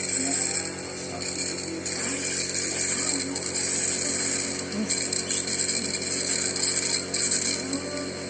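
Compressor nebulizer running steadily, a buzzing motor hum under a constant high airy hiss.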